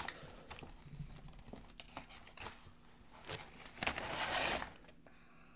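Scattered soft clicks and crunches of tortilla chips being handled and eaten at the table, with a brief crinkly rustle about four seconds in.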